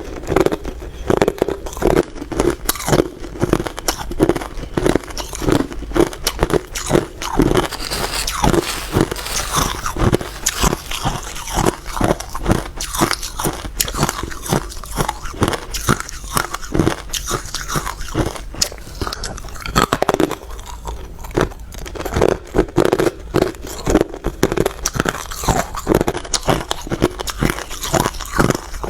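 Hard ice being bitten and chewed close to the microphone: a rapid run of loud, sharp crunches, a few each second.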